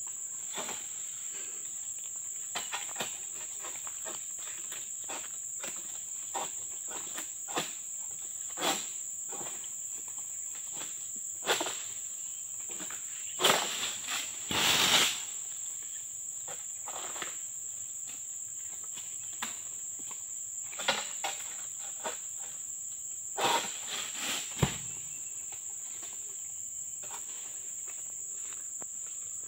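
A steady, high-pitched insect drone runs over scattered clicks and rustles of palm-frond harvesting. About halfway through comes a loud crashing rustle, and later a single heavy thud.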